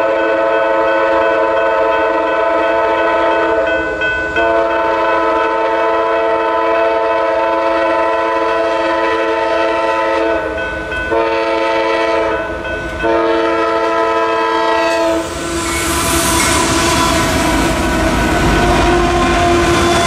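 A freight train's lead diesel locomotive sounds its multi-chime air horn in the grade-crossing pattern: the end of one long blast, another long blast, a short one, then a final long blast held as the train reaches the crossing. From about 15 seconds in, the rumble of the passing locomotives and their wheels on the rail builds under the horn.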